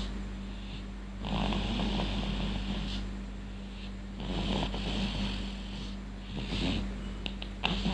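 Snoring in slow, regular breaths, one roughly every three seconds, over a steady low hum.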